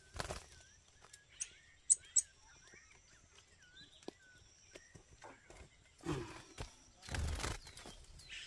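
Soft, repeated short chirps of a small bird, with three sharp clicks about two seconds in and a couple of bursts of rustling near the end as a wooden bird cage is handled in the brush.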